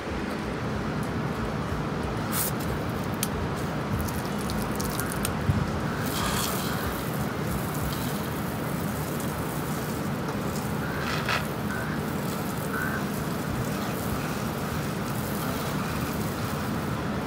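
Pressure washer running with a steady hum, with short spells of spray hiss about six and eleven seconds in.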